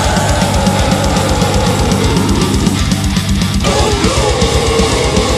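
Melodic death metal recording: distorted guitars over rapid, even kick-drum strokes about eight a second. A held lead melody swoops down to a new note about two-thirds of the way through.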